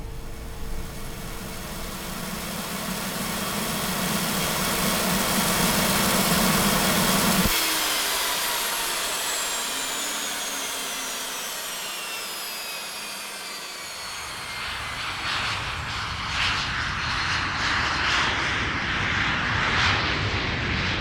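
Cessna CJ4 jet's turbofan engines: a rumble with a high whine that grows louder for about seven seconds, then the rumble drops away and the whine tones glide down in pitch as the sound fades. From about halfway through, a rougher rushing jet noise builds up again.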